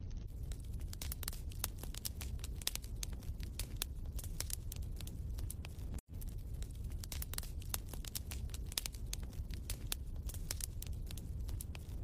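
Wood fire crackling in a fireplace: irregular pops and snaps over a low steady rumble, cutting out for an instant about halfway through.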